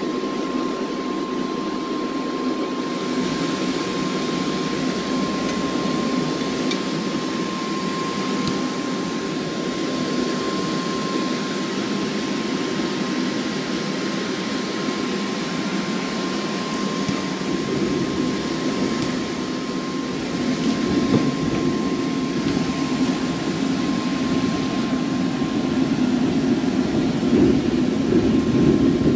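Bounce-house blower feeding a ribbon burner forge, running steadily with a constant whine. About three seconds in, a higher hiss of propane joins it, and about twenty seconds in the sound grows louder and deeper.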